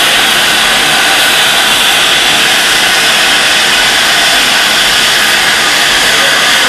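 A4 Pacific steam locomotive 60019 Bittern and its train passing, heard as a loud, steady hiss with no distinct exhaust beat.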